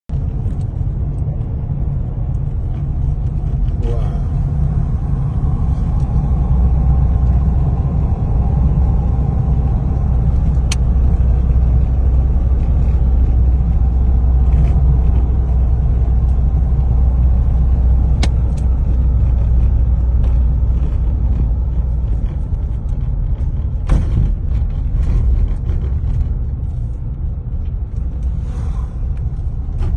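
Steady low rumble of a car driving on a road, with a few sharp knocks along the way.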